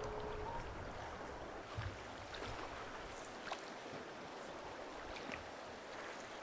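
River ice drift: broken ice floes moving on the flowing water, a steady rushing hiss scattered with small clicks and crackles of ice knocking and grinding together. A low thump about two seconds in.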